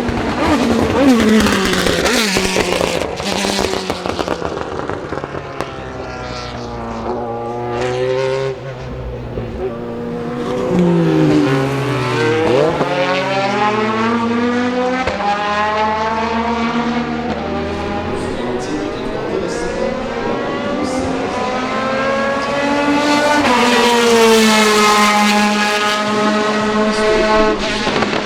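Ferrari F430 GT2 race cars' flat-plane V8 engines at racing speed, revving up through the gears and falling away on lift-off as the cars pass, sometimes two engines at once. Sharp backfire pops and crackles break in several times on the overrun.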